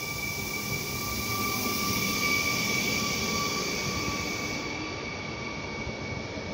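Electric multiple unit pulling into the platform and rolling past at low speed: a rumble with a steady high whine on top, loudest about two seconds in, then easing off as it slows.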